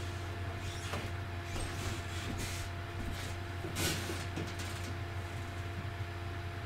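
Steady low electrical hum with a faint higher whine: the background of the recording. Two or three short soft rustles stand out, about two and a half and four seconds in.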